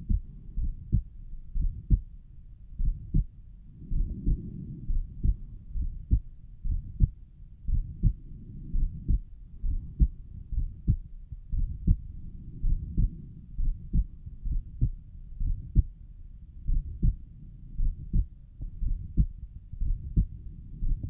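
Human heartbeat heard at the pulmonic valve area: steady low thuds about once a second, with a soft whooshing between beats that the uploader takes for a mid-systolic murmur.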